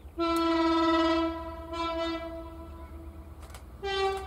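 Diesel locomotive horn sounding several blasts: a long one, a shorter one at the same pitch, then a higher-pitched blast near the end.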